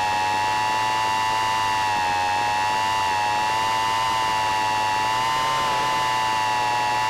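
Micro quadcopter's motors whining steadily in flight, the pitch wavering a little with the throttle.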